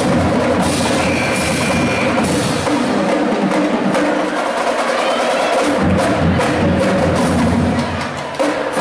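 A drum ensemble playing drums and percussion in a fast, dense rhythm, with a single sharp hit near the end.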